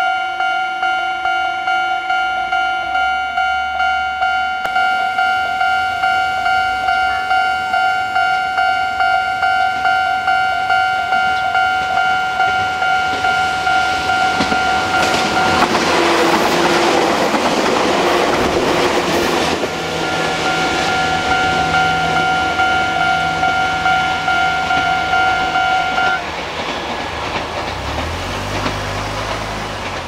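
Japanese level-crossing warning bell ringing in steady, rapidly repeated electronic dings. About halfway through, an electric Chichibu Railway train passes over the crossing with a loud rush of wheel and running noise that covers the bell for about four seconds. The bell then rings on and stops abruptly a few seconds later, leaving a low rumble.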